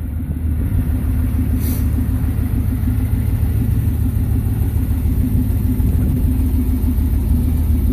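1996 Camaro Z28's LT1 V8 engine idling steadily.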